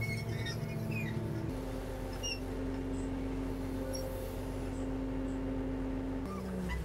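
A fishing boat's engine running steadily, a low hum heard from inside the wheelhouse. Its note steps up about a second and a half in and drops back near the end, with a few faint high squeaks in the first couple of seconds.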